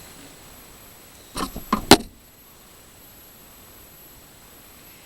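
A short clatter of small metal parts being handled, a few clicks ending in one sharp click about two seconds in, against a faint steady hiss.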